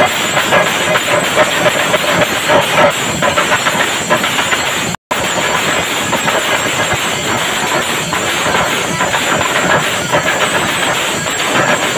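Chenda melam: many chenda drums beaten with sticks together with clashing ilathalam cymbals, a dense, loud, continuous mass of strokes. The sound cuts out for an instant about five seconds in.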